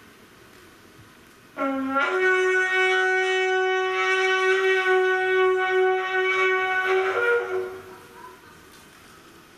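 A long ritual horn blown as one loud held note: a short lower note about a second and a half in jumps up to a steady tone held for about five seconds, which wavers and dies away near the end.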